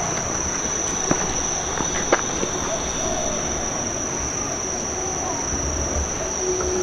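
Insects shrilling in one steady, unbroken high-pitched tone, with a couple of faint clicks about one and two seconds in.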